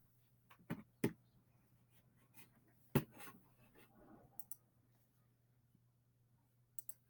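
Near silence, broken by a few faint scattered clicks and taps, the clearest about three seconds in.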